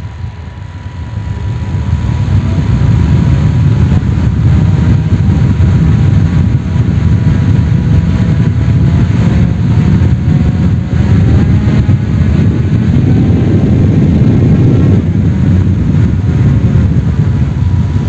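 Small brushed DC motor driving a propeller, run through a joystick-controlled Arduino and homemade ESC: it speeds up about two seconds in and keeps spinning fast, a loud low rush of air with faint whining tones that rise and fall as the speed changes.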